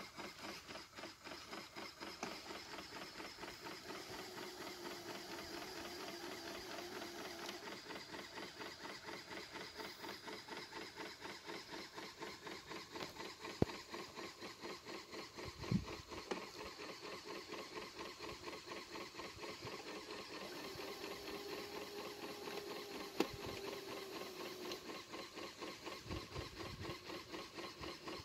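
LEGO pneumatic engine running, clattering in a fast, even rhythm, with a few sharp clicks as its gears are shifted. The engine is too weak to move the heavy boat.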